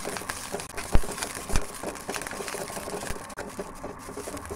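Wooden spatula stirring and scraping moringa leaves sautéing in ghee in an aluminium kadai: a continual run of small scrapes and clicks, with two sharper knocks of the spatula against the pan about one and one and a half seconds in.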